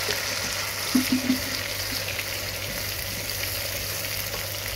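Ginger-garlic and onion paste frying in hot oil in a pressure cooker: a steady sizzle, with a metal ladle stirring and knocking against the pot a couple of times about a second in.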